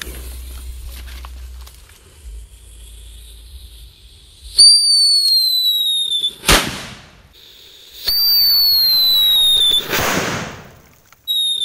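Whistling King Thunder firecracker going off: the lit fuse fizzes for about four seconds, then a loud whistle sliding slightly down in pitch ends in a bang, twice over, with a third whistle starting near the end.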